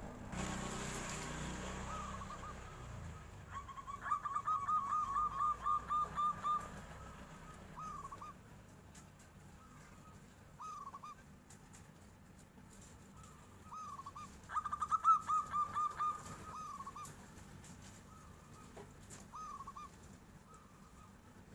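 Zebra dove (perkutut) cooing: two rapid runs of short, rippling notes, the first about four seconds in and the second about fifteen seconds in, with single soft coos between.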